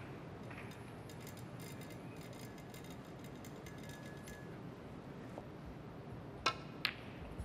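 Snooker balls clicking: two sharp clicks about a third of a second apart as a shot is played, over a steady quiet background hiss.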